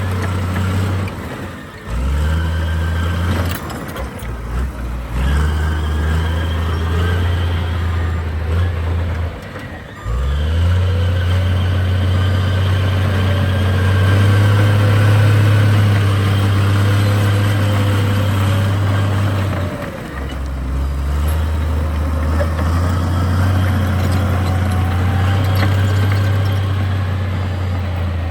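Heavy diesel engine of earthmoving machinery running under load, its revs rising and falling, with a few brief dips where it drops back.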